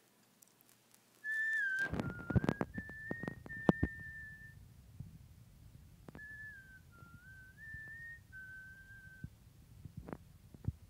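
A person whistling a short tune of a few stepped notes, twice, with a pause between the phrases. Several sharp knocks and a low rumble come under the first phrase, and a couple of clicks come near the end.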